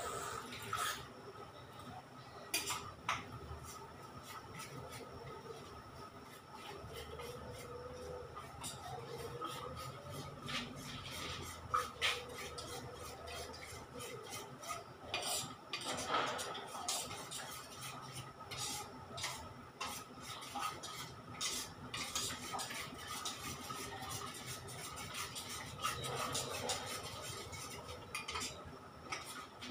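Stirring in a stainless steel bowl: a utensil clinks and scrapes against the metal in irregular taps.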